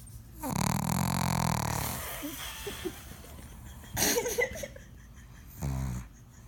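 A pug snoring in three breaths: a long, rattling snore about half a second in that fades away, a sharper snort around four seconds, and a short snore near the end.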